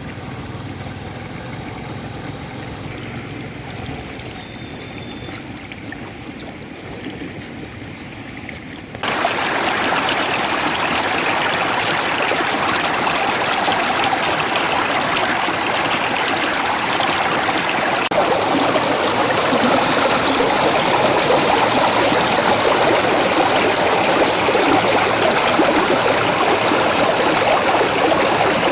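Water rushing steadily, a loud, even wash that starts abruptly about nine seconds in after a quieter stretch of low rumble.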